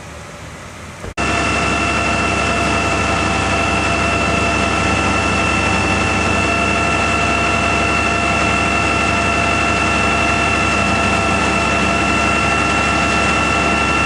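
A loud, steady mechanical drone with a constant high whine on top, starting abruptly about a second in and holding unchanged: a motor or engine running, such as a tow truck idling or a vehicle's heater blower.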